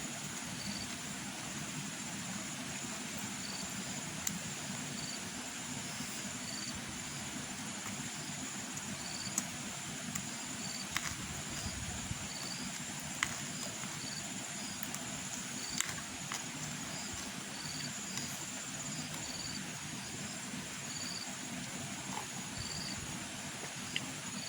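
Steady high-pitched insect drone with short chirps repeating every half second or so, and a few sharp clicks scattered through.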